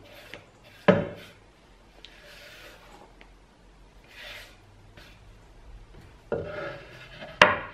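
A hand sweeping grated carrot and chopped spring onion off a wooden cutting board into a stainless-steel bowl, with a sharp knock of the board about a second in and soft rubbing and scraping after it. Another sharp knock comes near the end as the wooden board is set down.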